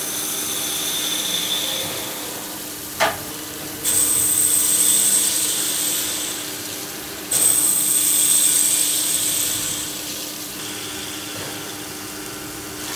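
CNC gang-tool lathe turning a groove in an aluminium disc with coolant flowing, its spindle running steadily underneath. A high-pitched cutting whine comes in sharply about 4 s in and again about 7 s in, each lasting a few seconds, with a short sharp sound just before the first.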